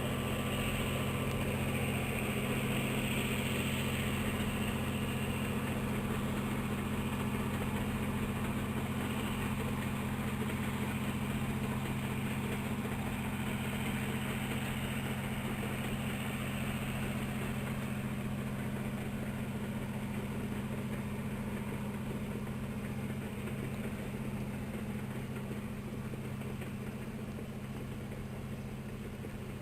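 Steady low mechanical hum made of a few even tones, like a motor or engine running, easing off slightly near the end.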